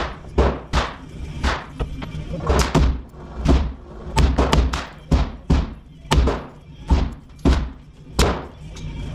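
Rapid gunfire from an AR-15-style rifle at an indoor range: about twenty sharp shots at uneven spacing, two to three a second, each echoing briefly off the range walls.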